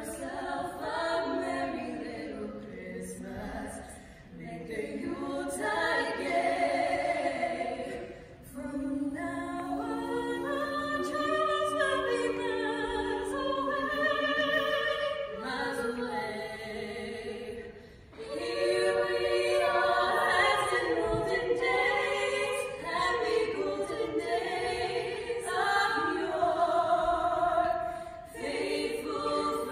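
Three female voices singing a cappella together, phrase after phrase with short breaks for breath.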